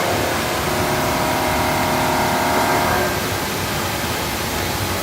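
Chevalier AD III automatic grinder running: a steady machine hiss with a whine of several steady tones that stops about three seconds in, leaving the hiss alone.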